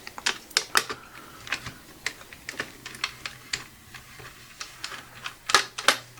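Light, irregular clicks and taps of a small screwdriver and fingers on the laptop's internals while a tiny screw is worked out of a metal cable-retaining plate, with two louder clicks near the end.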